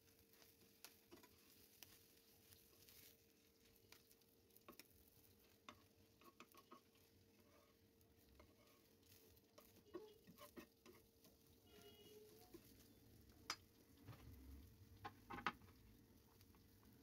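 Faint crackling of an egg omelette frying in oil in a nonstick pan, with scattered clicks as a spatula turns it; a few sharper clicks near the end.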